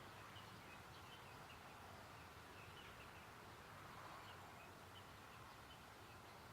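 Faint, scattered short high chirps of small birds at dawn, over a steady low background hum.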